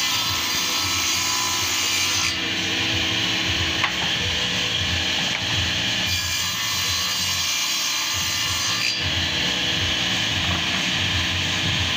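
Electric table saw running steadily, its circular blade cutting wooden boards fed by hand along the fence. The high hiss of the cut comes and goes every few seconds as boards pass through the blade.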